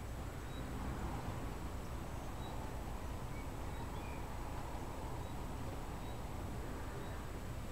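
Steady outdoor background noise: a low hum under an even hiss, with a thin steady high tone and a few faint, short high chirps now and then.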